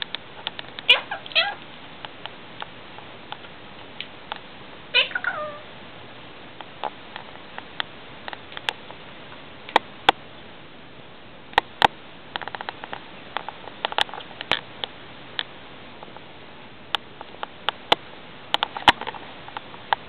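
Indian ringneck parakeet giving short calls that fall in pitch, two together about a second in and another about five seconds in, followed by a scattering of sharp clicks and taps.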